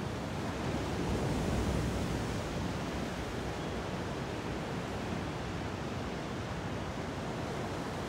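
Ocean surf washing steadily against a rocky shore, a continuous rushing noise that swells slightly about a second in.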